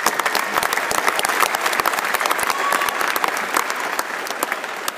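Spectators applauding, with a few sharp claps close by, easing off near the end.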